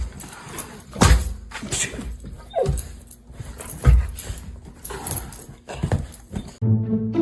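A dog giving one short falling whine amid scattered knocks and thumps. Music comes in near the end.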